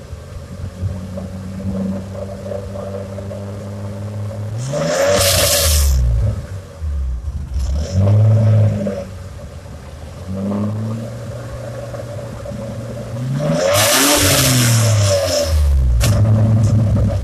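A 1992 BMW E34's engine running and revved again and again, its pitch climbing and dropping. The two longest revs, about five seconds in and near the end, are the loudest and carry a rushing noise with them.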